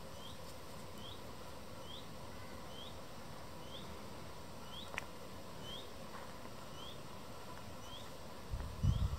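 A small songbird repeating a short rising call, a little more than once a second, in an even series. The bird is the alarmed parent of a nest of fledglings. A click about halfway through and a low thump near the end.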